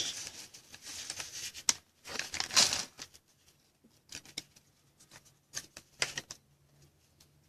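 Trading cards being handled by hand: paper-and-foil rustling and crinkling for the first few seconds, then a few soft clicks and taps as the cards are shuffled through.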